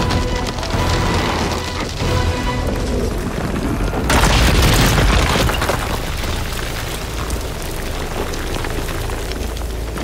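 Dramatic film score music, broken about four seconds in by a sudden loud boom of rock crashing down that dies away over a second or two.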